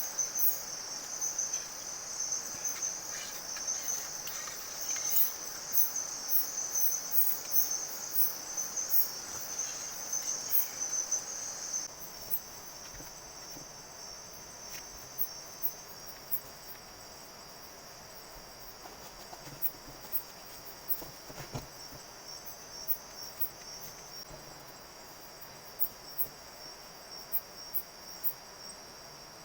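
Night insect chorus, crickets among them: a steady high-pitched trill with scattered sharp ticks. About twelve seconds in, the chorus drops noticeably quieter and the ticks thin out.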